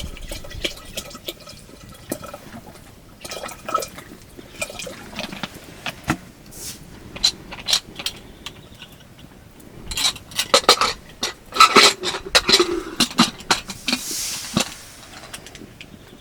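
Water pouring and sloshing, mixed with irregular knocks and clatter, busiest and loudest about two-thirds of the way through.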